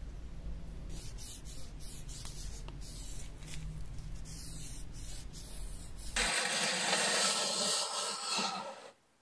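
Light scraping and ticking over a low steady hum, then about six seconds in the hum stops and a loud, even hiss like a spray runs for about two and a half seconds.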